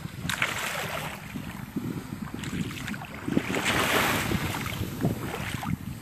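Wind rumbling on the microphone over the wash of small, gentle waves on the sand; the hiss of the wash swells about half a second in and again around four seconds in.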